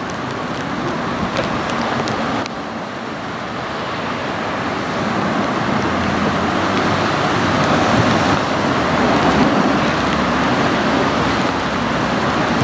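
Road traffic noise: a steady rush of passing vehicles, dipping suddenly about two and a half seconds in and then swelling gradually.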